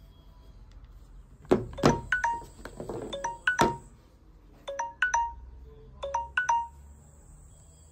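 Samsung phone alarm or timer tone ringing: short groups of bright electronic notes that repeat about every second and a half. Two loud knocks come just before the tone starts.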